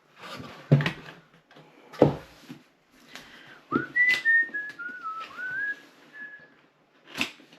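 Handling of the Apple Watch Ultra 2's packaging: a few sharp clicks and taps as the box is worked open. A wavering high whistle steps down and back up for about three seconds in the middle.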